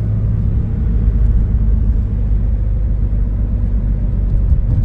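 Loud tire road noise from worn Ohtsu FP8000 tires on a moving car, heard from inside the cabin as a steady low rumble. The tires sound like big 4x4 tires.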